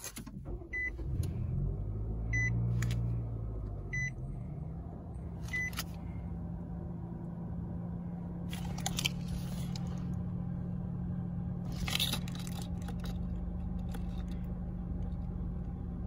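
2024 Nissan Sentra's 2.0-litre four-cylinder engine starting up, swelling briefly, then settling into a steady idle heard from inside the cabin. Four dashboard warning chimes sound over the start, about a second and a half apart. A couple of brief rustles of handling noise come near the middle.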